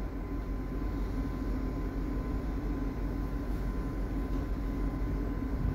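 Steady low drone of ship's machinery, with a thin, constant high hum above it.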